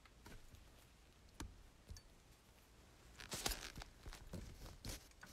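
Faint handling noises: a few scattered light clicks and knocks, with a brief rustle about three seconds in.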